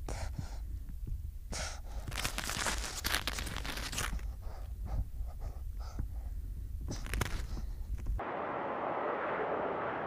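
Seal pup breathing and sniffing in short, noisy puffs close to the microphone, over a low rumble. About eight seconds in, the sound cuts abruptly to a steady hiss.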